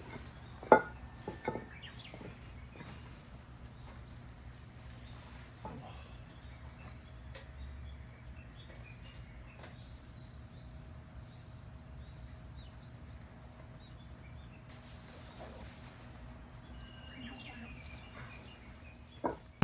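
Faint birds chirping now and then over a steady outdoor background hiss, with a few light knocks in the first two seconds.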